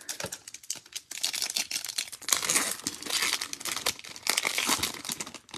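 Upper Deck hockey card pack's foil wrapper being torn open and crinkled by hand: a dense run of crackling and tearing, loudest in the second half.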